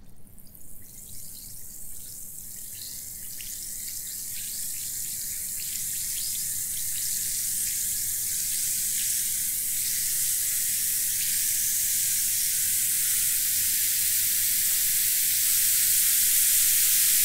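Water fizzing in a glass, as from an effervescent tablet dissolving: fine crackling pops over a high hiss that grows steadily louder.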